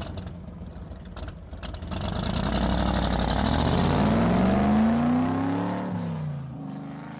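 A motor vehicle's engine accelerating, its pitch rising for a few seconds and loudest about two-thirds of the way in, then dipping and climbing again near the end.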